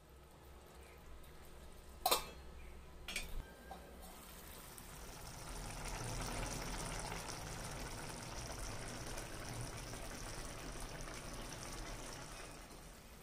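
Curry simmering in a pan, a steady bubbling sizzle that builds up about five seconds in. Before it, a sharp clack about two seconds in and a few lighter knocks a second later.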